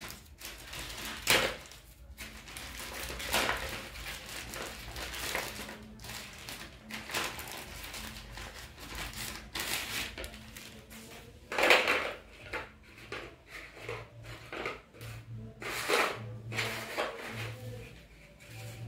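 Plastic courier mailer bag crinkling and tearing as it is ripped open by hand, with cardboard toothbrush boxes rustling and scraping as they are pulled out and handled. Irregular rustles throughout, the loudest about a second in and again near the middle.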